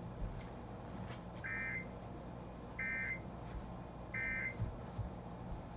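Emergency Alert System end-of-message signal: three identical short bursts of buzzy digital data tones, each about a third of a second and spaced a little over a second apart, over a low steady hum. The bursts mark the end of the broadcast alert.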